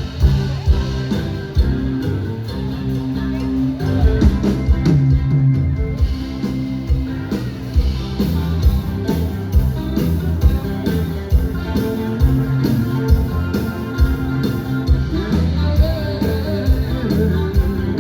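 Live band playing a rock number: electric guitar, bass and drum kit with a steady beat.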